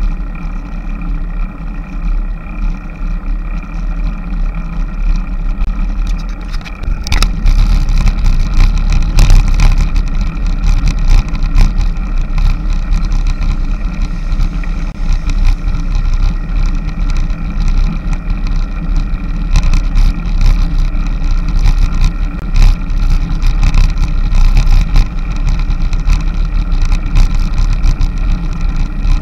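Wind buffeting and road rumble on a bike-mounted action camera while riding a road bike, a steady low rush that grows louder about seven seconds in.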